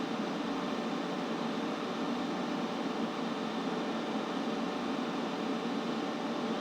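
Steady, unchanging white-noise hiss from a sleep-sound track, fuller in the low middle than at the top.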